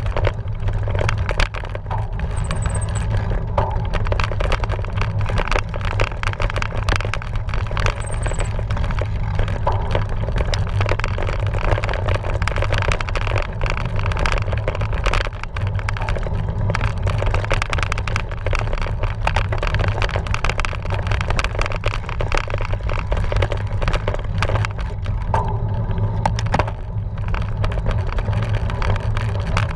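Cyclocross bike being ridden over rough trail: a steady low rumble of wind on the microphone with constant rattling and clicking from the bike.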